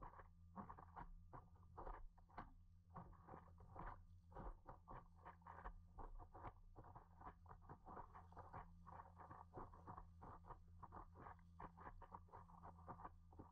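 Faint, rapid, irregular patter of water splashing and slapping against a paddleboard as it is paddled through chop, over a low steady hum.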